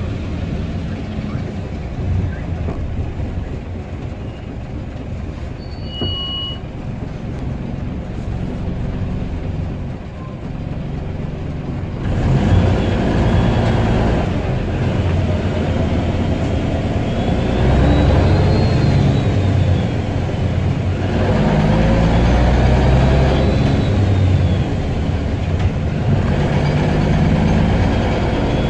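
Guy Arab III bus engine running steadily, then less than halfway in getting louder as it pulls, its revs climbing and dropping several times. A high whistle rises and falls with the revs: the bus's well-known "turbo whistle".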